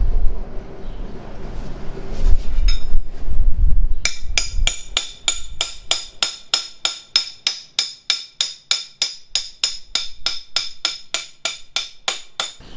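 Rear axle of a Yamaha YZ250F being driven out of the wheel hub with a rubber mallet. After a few seconds of low handling rumble, about four seconds in come steady, even taps, about three a second, each with a short metallic ring from the axle.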